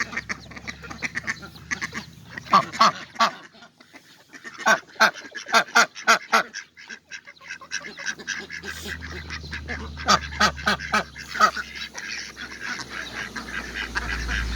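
Ducks quacking in several runs of short, rapid calls.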